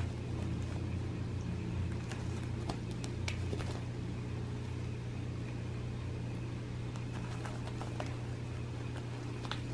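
A steady low hum, like a running fan or appliance, with faint scattered ticks and rustles from a cat biting and kicking a feather wand toy.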